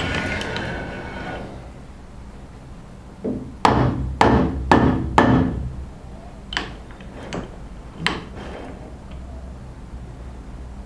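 Hammer blows in a metal workshop: a quick run of about five strikes, then three more spaced-out single knocks. A steady low hum runs underneath.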